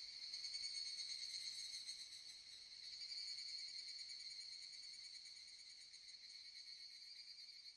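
Faint, steady high-pitched trilling of singing insects.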